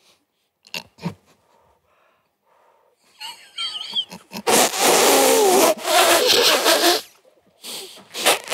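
A man's rough, strained attempt to imitate an opera soprano's high note: a hoarse, wavering cry that begins about halfway through and lasts about two and a half seconds, followed by short bursts of voice near the end.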